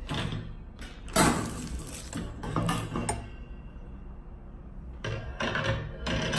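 Metal clinks and knocks of a stainless steel chrome dish drainer rack being handled and fitted together: a wire shelf knocking against the S-shaped side frame. Several sharp strikes, the loudest about a second in, with a second cluster near the end.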